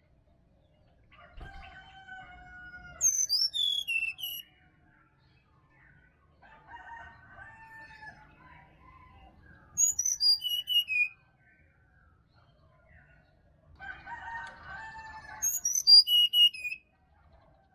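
Brown-chested jungle flycatcher singing: three song phrases about six seconds apart, each ending in a quick run of high whistled notes that fall in pitch, preceded by a lower, longer call.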